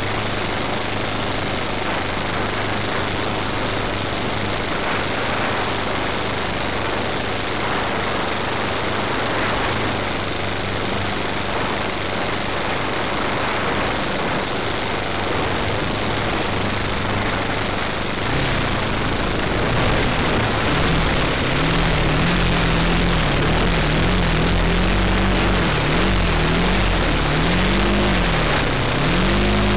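O.S. 95V glow engine of a radio-controlled model plane running at idle, heard close up from the plane's own nose. From about two-thirds of the way in it gets louder and its pitch swings up and down again and again as the throttle is blipped.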